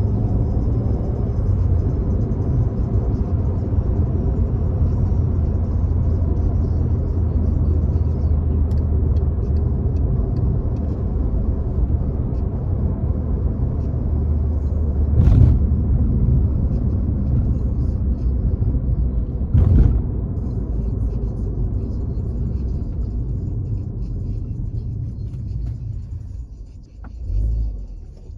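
Turbocharged Volkswagen Jetta engine and road noise while cruising: a steady low drone, with two short sharp noises about midway and again a few seconds later. Near the end the drone eases off and grows quieter as the car comes off the throttle.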